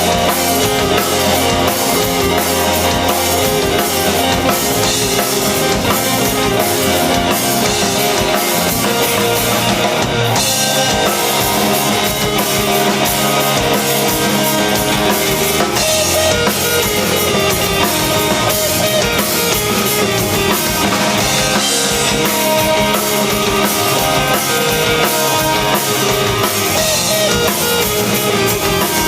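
Rock band playing live, with a drum kit and guitars driving a steady beat.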